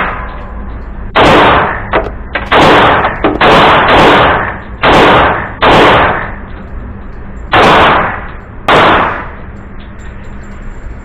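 Eight pistol shots from a Girsan MC1911S Liberador II .45 ACP 1911, fired at an uneven pace about a second apart with a longer pause before the last two. Each shot has a short echoing tail.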